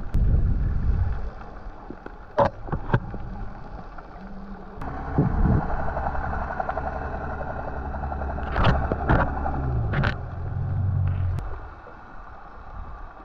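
Underwater recording of a boat motor's low droning hum carried through the water, shifting in pitch a little near the end, with a few sharp clicks and knocks.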